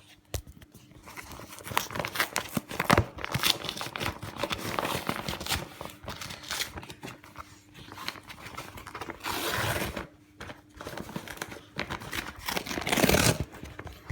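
Hands tearing open a mail parcel, packaging crinkling and ripping in a quick irregular crackle, with two longer, louder rustles about nine seconds in and near the end.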